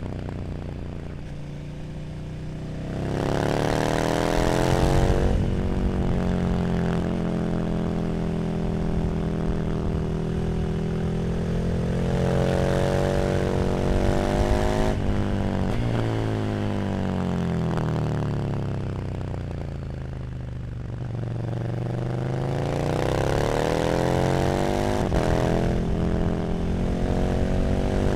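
KTM 1290 Super Duke R's V-twin engine through an Arrow slip-on exhaust, revving up hard a few seconds in and then holding speed. Its revs drop sharply about halfway, fall away for several seconds, and then climb again towards the end.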